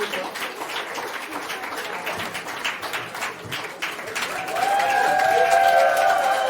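A crowd applauding with dense clapping. About four and a half seconds in, several voices break into a cheer that rises and then holds, and the whole sound grows louder.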